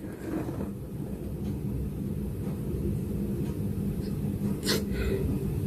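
Steady low background rumble with a faint hum, and a short sharp click about four and a half seconds in.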